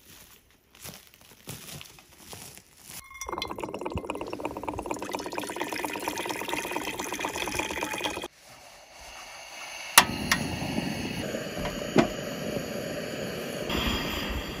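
Water running from a water jug's spigot into a cooking pot for about five seconds. Then a propane camp stove's burner is lit: two sharp clicks, at about ten and twelve seconds in, and a steady hiss of the burning gas. Faint footsteps on the forest floor come before the pouring.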